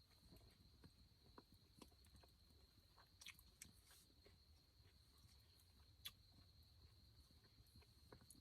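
Near silence: a faint steady high-pitched tone and low hum, with scattered faint clicks and ticks, one slightly louder about six seconds in.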